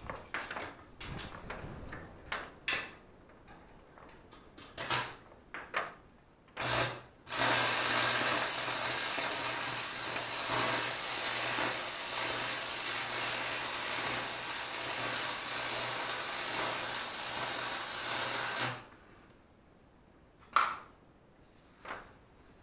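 Stick welding arc on a steel pipe: a short strike about seven seconds in, then the arc burns steadily for about eleven seconds as a constant hiss over a low hum, and stops. Scattered taps and clicks come before the bead, and a single knock near the end.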